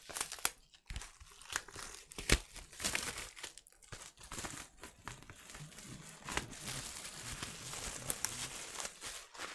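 Plastic shrink-wrap being peeled off a vinyl LP sleeve and crumpled in the hand: irregular crinkling and tearing, with a few sharp snaps, the loudest about two seconds in.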